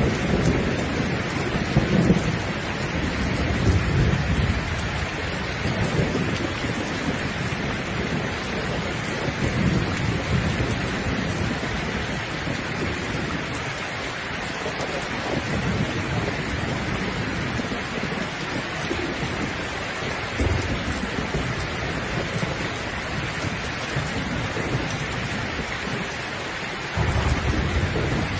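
Steady rain with low rolling thunder that swells and fades several times; a new rumble sets in suddenly near the end.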